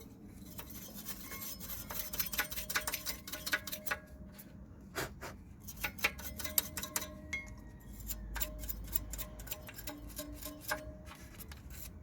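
Hand wire brush scrubbing the pad seats of a rear brake caliper carrier, rapid scraping strokes of steel bristles on rusty metal to clean where the new pads will slide.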